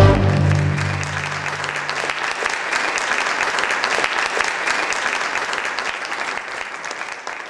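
An audience applauding, tapering off near the end, while a held low note of the music dies away in the first couple of seconds.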